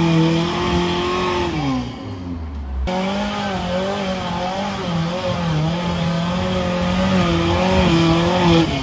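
Off-road pickup's engine running under load on a muddy climb. The revs hold, then fall away about two seconds in. After a short break the engine runs on, its revs rising and falling.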